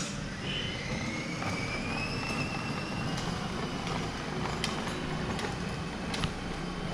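A steady low hum with a faint electric motor whine that rises in pitch over a couple of seconds, and a few light clicks.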